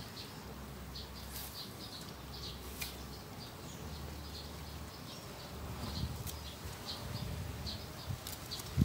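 Outdoor ambience of small creatures chirping: short, high chirps repeating irregularly over a low hum, with a sharp low thump at the very end.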